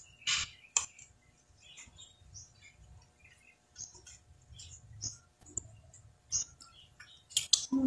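Sounds of eating raw oysters: irregular small clicks and scrapes of a metal fork against oyster shells and a sauce bowl, mixed with brief wet mouth sounds.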